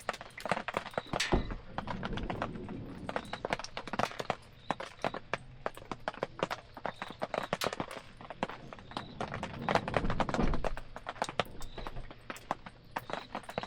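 Wood campfire crackling, with irregular sharp snaps and pops throughout. Two brief low rumbles swell up, one about two seconds in and one near ten seconds in.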